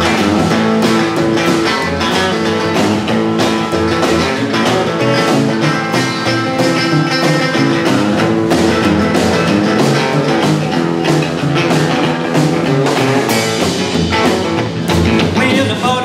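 Live rock-and-roll boogie band playing an instrumental passage: electric guitar over upright bass and drums.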